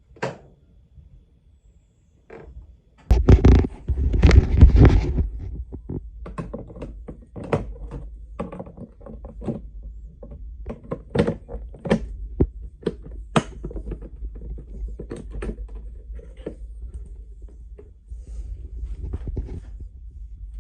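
Samsung washing machine running: a click, then a few loud thumps, then a steady low hum with irregular knocks and clicks from the drum.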